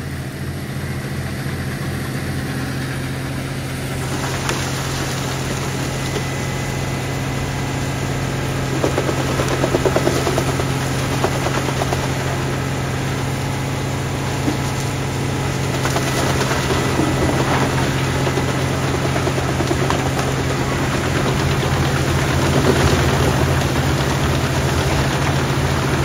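Big Fendt tractor's engine running steadily under load, driving a PTO wood chipper that chews through brush and branches. The grinding noise of the chipping thickens about four seconds in and carries on, with a few sharper knocks as pieces go through.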